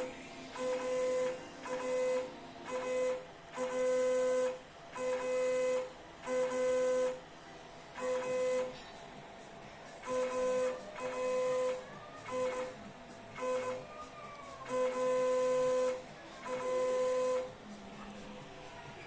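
Stepper motors of a C-Bot CoreXY 3D printer driving the print head along its X and Y axes in a series of short jogs from the control dial. About fourteen separate moves, each a half-second to a second of steady pitched whine, with a few moves gliding up and down in pitch near the middle.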